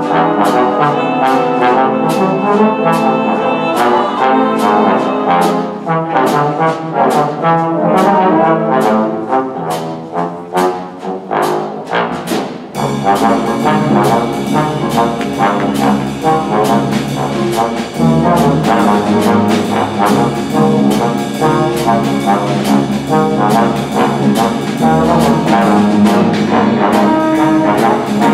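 Big-band jazz with a trombone soloing over light backing; about halfway through, the full band comes in with a low bass line and a fuller sound.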